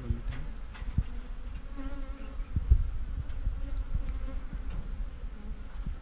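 A honeybee swarm buzzing as it clusters at and enters a hive, with a few low thumps, the loudest about two and a half seconds in.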